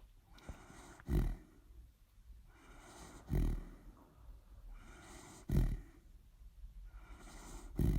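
A sleeping dog snoring: four loud, low snores at an even pace of about one every two seconds, with a softer breathy sound between them.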